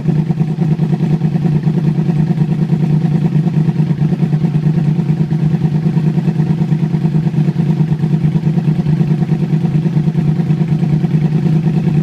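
2009 Yamaha R1's crossplane inline-four engine idling steadily and loudly when warm, through a Toce T-Slash aftermarket exhaust.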